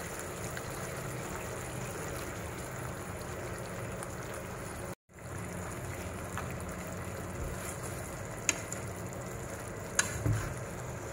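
Fish simmering in oyster and chilli-ketchup sauce in a pan, a steady sizzling hiss that drops out for a moment about halfway. Near the end come a few sharp clicks of chopsticks against the fish and pan.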